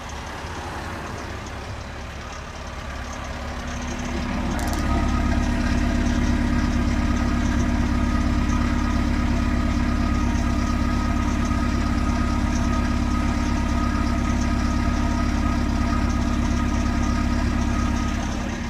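Toyota 22RE 2.4-litre four-cylinder engine idling steadily after a cold start, getting louder about four seconds in and then holding even. The owner puts the noise down to a slack timing chain, even though the chain was recently replaced.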